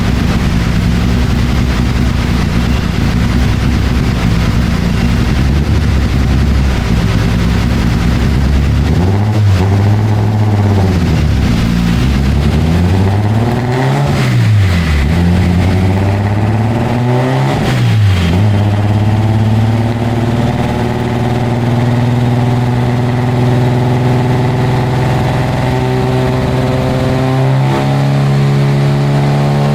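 AE82 Toyota Corolla engine with aggressive 300/294 camshafts running hard on a chassis dyno. It holds a steady high speed at first, then revs up and down several times, then climbs slowly in revs with a sudden step up near the end.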